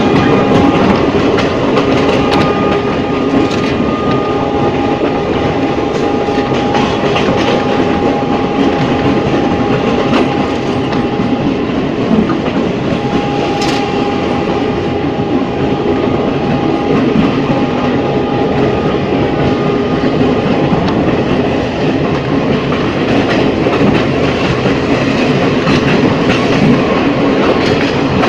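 Ex-JR 203 series electric multiple unit running at a steady speed: continuous wheel-and-rail rumble with a steady whine, and sharp clicks as the wheels cross rail joints, one louder about halfway through.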